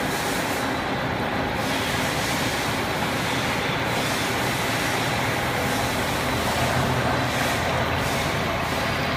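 CNC gantry milling machine's spindle running as its tool cuts into a steel workpiece under a stream of coolant: a steady mechanical noise with a faint hum and no sudden changes.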